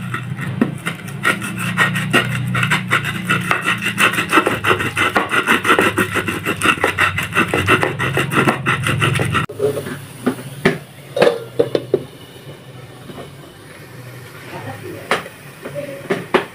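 Stone pestle grinding garlic, shallots and chilies in a shallow cobek mortar: rapid, gritty rubbing and crushing strokes for about nine and a half seconds, then it stops abruptly. A few scattered knocks follow.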